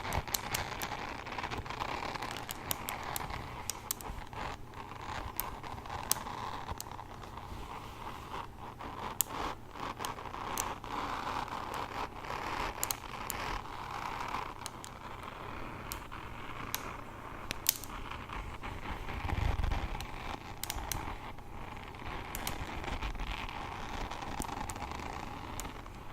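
Hairbrush bristles being scratched and brushed close to the microphone: a steady scratchy rustle that swells and fades every second or two, dotted with many small sharp clicks.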